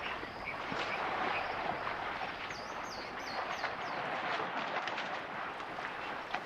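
Outdoor ambience: a steady rustling hiss with scattered clicks, and a bird giving a run of about five quick high chirps a little past two seconds in.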